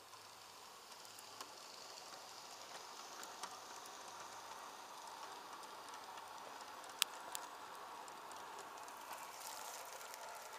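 G-scale model coal train, an Aristocraft 2-8-8-2 Mallet and loaded hopper cars, rolling past on garden track: a faint steady whir of wheels and gearing with light clicking, and two sharp clicks about seven seconds in.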